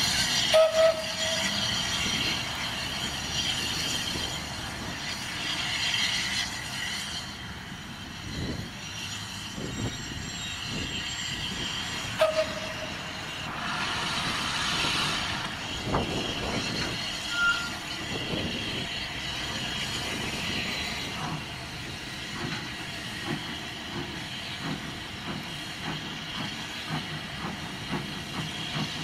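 C22, a 1902 Beyer Peacock 2-6-0 steam locomotive, moving slowly with its carriage: steady steam hissing from the cylinders, with scattered knocks and a couple of short wheel squeaks, about a second in and about twelve seconds in.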